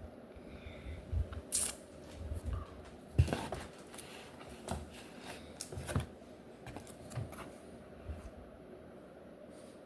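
Comic books being handled: paper and covers rustling, sliding and tapping in a few short bursts, with sharper clicks now and then.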